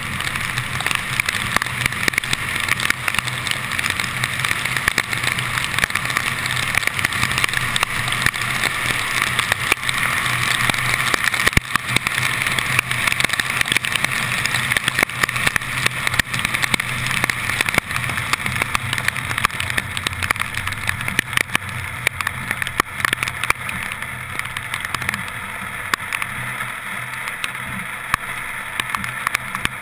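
Car driving on a rain-soaked, flooded road, heard through a camera mounted outside on the hood: a steady hiss of tyres and water spray over a low engine hum, with many sharp ticks of rain striking the camera. It grows somewhat quieter near the end.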